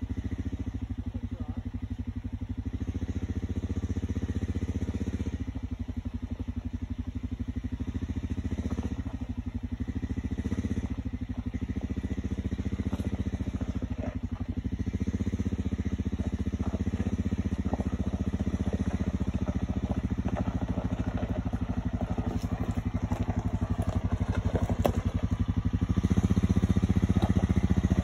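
A 2011 Honda Rancher ES ATV's single-cylinder engine running at low revs as the quad crawls down a rocky washout, with scattered clicks and knocks of rock under the tyres. It gets louder about two seconds before the end as the ATV comes closer.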